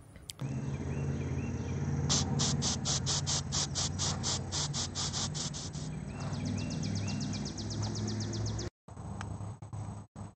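Insect calling in a rapid, even ticking rhythm of about five high-pitched pulses a second, shifting to faster, fainter pulses a few seconds later, over a low steady hum.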